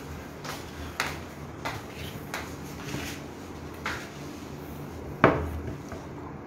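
Light knocks and clicks as a tablet in a folding case is handled on a table, with one sharper, louder knock about five seconds in.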